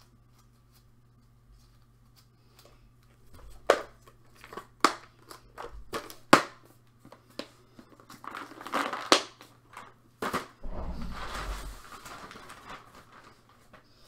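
Items being handled and packed: several sharp clicks and knocks in the first half, then rustling and crinkling of a plastic bag from about eight seconds in.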